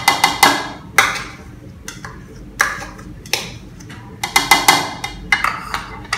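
Metal spoon clinking and scraping against a ceramic bowl and a plastic cup as mayonnaise is knocked off it: about a dozen sharp, irregular clinks, each with a brief ring.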